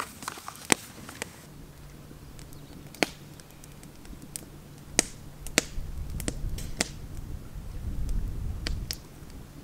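Wood campfire crackling, with sharp pops at irregular intervals of about a second; the split firewood burning is wet.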